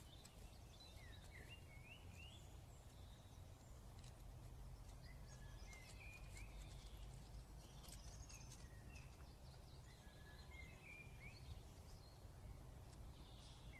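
Quiet outdoor background: small birds chirping faintly and repeatedly over a low, steady rumble.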